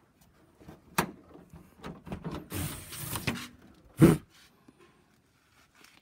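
Handling noises: a sharp knock, a stretch of rustling, and a loud thump about four seconds in.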